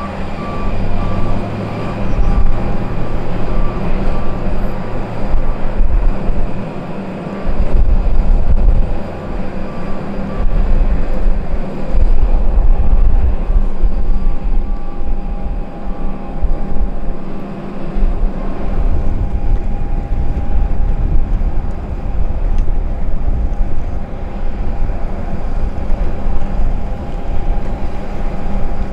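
Beechcraft King Air twin turboprop engines running as the plane rolls along the runway, with strong gusty wind buffeting the microphone in uneven low rumbles. A vehicle's reversing beeper sounds steadily through the first ten seconds or so.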